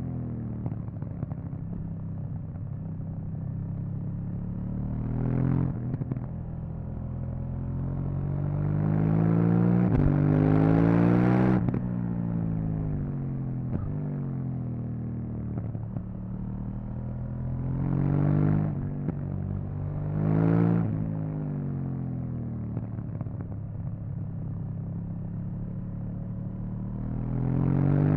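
KTM 790 Duke's parallel-twin engine on its stock exhaust, under way with the revs rising and falling as the throttle is opened and closed. The longest pull climbs for a few seconds about a third of the way in and cuts off sharply. Shorter surges come early, twice past the middle and at the very end, with the revs falling away between them.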